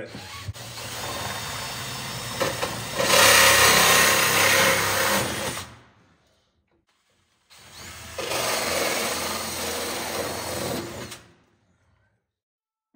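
Cordless drill with a 57 mm hole saw cutting through a 110 mm plastic soil pipe to make holes for strap-on boss connectors. Two drilling runs: the first grows louder about three seconds in as the saw bites and stops near six seconds; after a short pause a second run starts near seven and a half seconds and stops near eleven.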